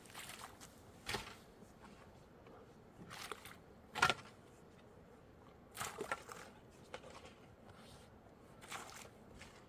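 Irregular short scrapes and knocks of hands-on work, about six in a few seconds, the loudest about four seconds in, over a faint steady hiss.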